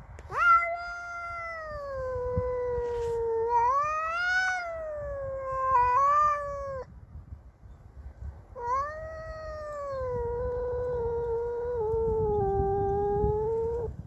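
A domestic cat yowling in two long, drawn-out caterwauls whose pitch wavers up and down, with a short break between them. This is territorial yowling at a rival cat that has come into its territory.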